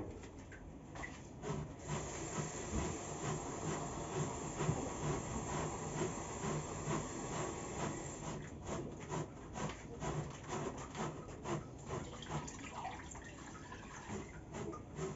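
Zucchini rubbed over a metal box grater in repeated strokes. Near the end, water is poured into the pan on the stove.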